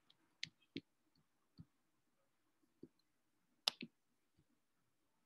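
Near silence broken by scattered faint clicks and taps, about seven in all, the sharpest a little past the middle.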